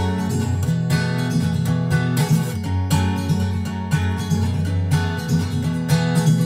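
Background music led by plucked acoustic guitar, with a steady beat.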